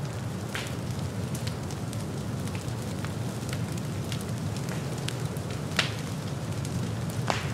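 Forest fire burning through dry leaf litter and fallen logs: a steady low rush of flame with scattered crackles and sharp pops. The loudest pop comes about six seconds in and another near the end.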